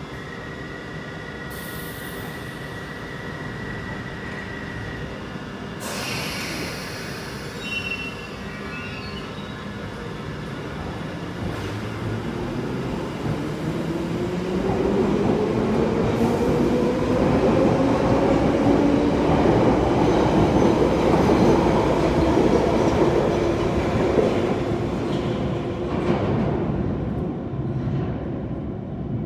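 London Underground 1973 Stock Piccadilly line train standing at the platform, its doors shutting with a clunk about six seconds in. It then pulls away, its traction motors whining and rising in pitch as it accelerates. The sound grows loud as the cars pass, with some wheel squeal, then fades as the train leaves.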